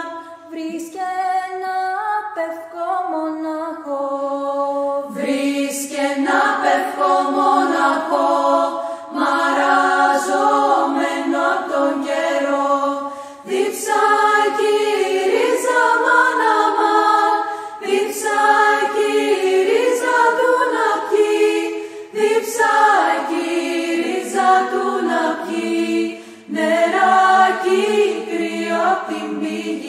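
Unaccompanied vocal ensemble singing a Greek polyphonic folk song: several voices in close harmony, one holding a steady note under lines that move, with short breaks between phrases.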